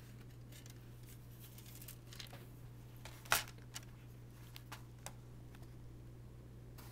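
Light clicks and taps of plastic laptop parts being handled during disassembly, with one sharper click about a third of the way in, over a steady low hum.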